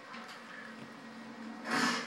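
Italian greyhound chewing and tugging at its fabric bed: faint scattered crunching ticks, then one brief, louder noisy burst near the end.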